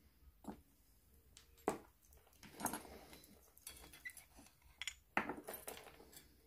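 A metal scoop clinking and scraping against a small glass jar of dip powder as the powder is stirred: a few separate sharp knocks with short scrapes between them.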